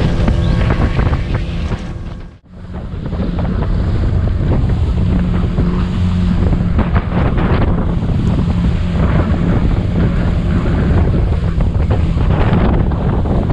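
Outboard motor of a small boat running under way: a steady engine hum under heavy wind buffeting the microphone. The sound drops out for an instant about two seconds in.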